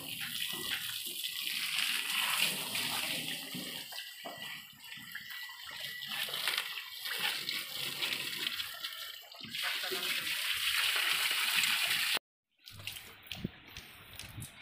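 Water from a garden hose spraying and splashing against an excavator's cab glass and steel bodywork. It stops abruptly about twelve seconds in, and quieter short rubbing and clicking sounds follow as a hand wipes the wet cab glass.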